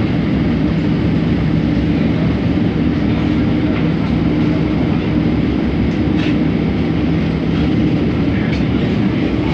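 Inside a Scomi/MTrans rubber-tyred monorail train in motion: a steady running rumble with a constant low hum, and a few faint ticks in the second half.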